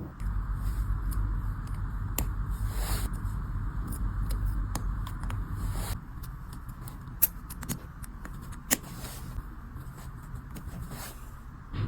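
Wood being carved by hand: small scraping and cutting sounds with scattered sharp clicks of a blade on wood, over a low hum that drops about six seconds in.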